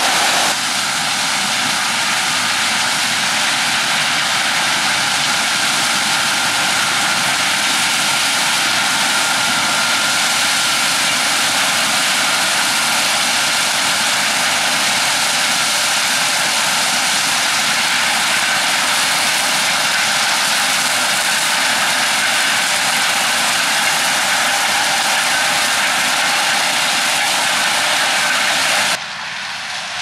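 Claas Lexion 8700 combine harvester running at full work while combining grain maize: a loud, steady machinery rush from the engine, threshing gear and maize header, with a faint steady whine. It drops suddenly in level about a second before the end.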